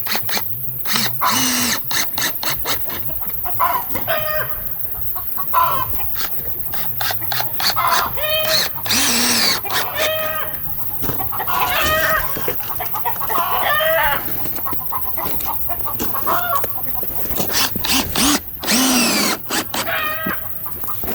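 Chickens clucking and calling again and again, with short rising and falling calls. Mixed with them are quick clicks and knocks from fastening the greenhouse's aluminium base to the wooden foundation.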